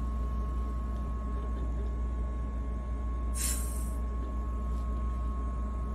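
A short whoosh of air through an EMST pressure-threshold expiratory muscle trainer as a forceful breath out opens its valve, about three and a half seconds in: the whoosh is the sign of a successful repetition. Under it runs a steady hum with a constant high tone.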